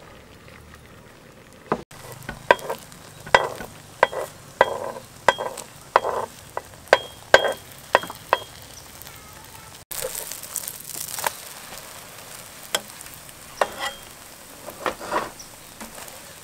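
Beaten egg frying as a thin omelette in a nonstick pan, sizzling, while a stainless steel spatula taps and scrapes against the pan in a string of sharp clicks, one or two a second. A louder hiss comes up briefly about ten seconds in.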